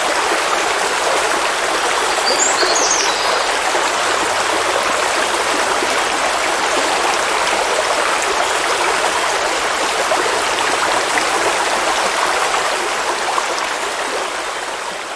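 River water rushing and babbling steadily, with a brief high bird chirp about two and a half seconds in. The sound begins to fade out near the end.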